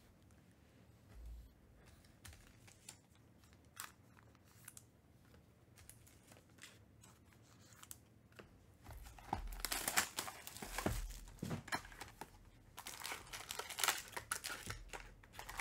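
Plastic wrapping and foil trading card packs crinkling and tearing as a sealed card box is opened and its packs are handled. This comes in irregular bursts over the second half, after a few faint clicks.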